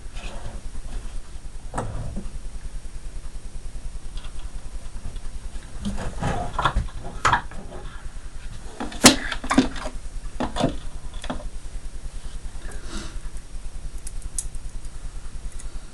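Scattered clicks and knocks of hand tools and fridge parts being handled during disassembly, the loudest sharp knock a little past halfway, over a steady low hum.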